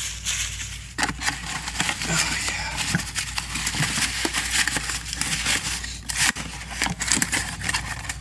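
Crumpled paper packing and a cardboard parts box being handled, crinkling and crackling with many small clicks and rustles.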